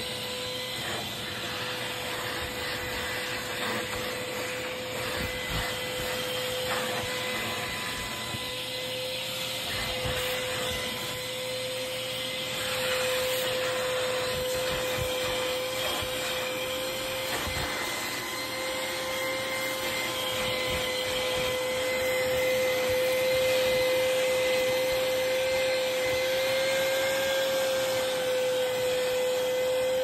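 Vacuum cleaner with a crevice nozzle running over sofa upholstery: a steady whine over a continuous rushing hiss, getting a little louder about halfway through.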